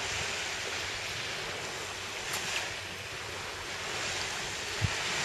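Small waves washing onto a sandy beach: a steady surf hiss. A short low thump comes near the end.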